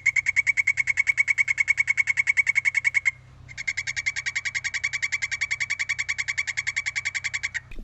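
Golden poison dart frog calling: two long, rapid, steady-pitched trills of about ten pulses a second, with a short break about three seconds in.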